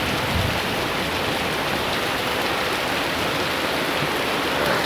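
Heavy tropical downpour drumming steadily on roofs and the wet floor.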